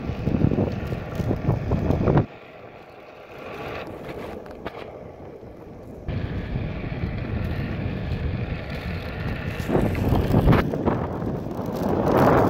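Wind from riding a Onewheel downhill buffets the phone's microphone in gusts. The rush drops suddenly about two seconds in, stays lower for a few seconds, then builds back up into strong gusts near the end.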